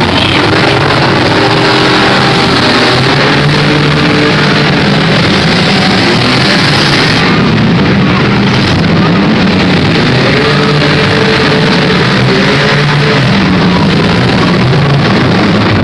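Several demolition derby cars' engines running and revving together, loud and steady with pitches rising and falling as drivers accelerate.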